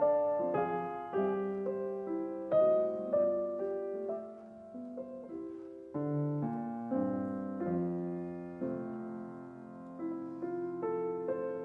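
Background piano music: a slow, gentle piece of single notes and chords, each struck and left to die away.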